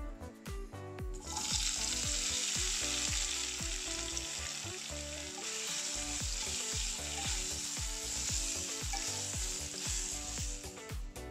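Crumbled tofu frying in hot olive oil, a dense steady sizzle as it is turned with tongs. The sizzle starts suddenly about a second in, as the tofu hits the oil, and stops just before the end, over background music with a steady beat.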